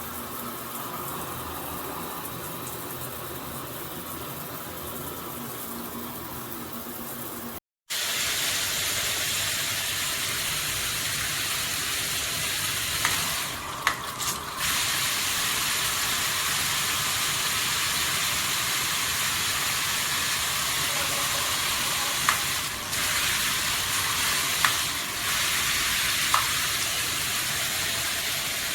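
Water spraying from a shower head, a steady hiss. About eight seconds in it cuts off abruptly and resumes louder, with a few brief breaks and clicks further on.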